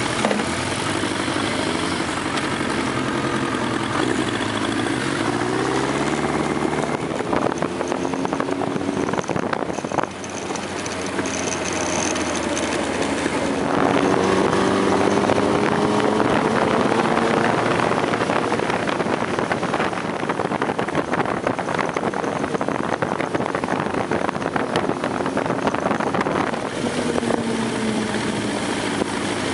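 Motorcycle engine running at road speed with heavy wind noise on a bike-mounted camera; the engine note rises and falls with throttle and gear changes, with a few abrupt shifts in the sound.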